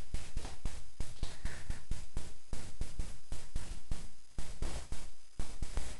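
Walking and handling noise from a handheld camera being carried: a rapid, irregular run of clicks and knocks, about four a second.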